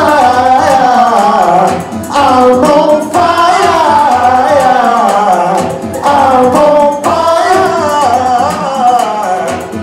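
Loud pop music with a sung melody over a backing track, the tune rising and falling in phrases with short breaks.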